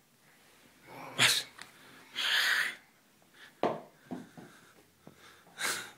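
Small short-muzzled dog snorting and sneezing in a few short bursts, the longest about two seconds in.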